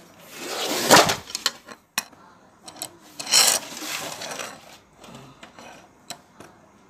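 Hand tin snips cutting a V-notch into thin sheet metal: two rough crunching, rattling bursts as the blades shear and the sheet shakes, the first and louder one about a second in, with sharp clicks of the snip jaws between the cuts.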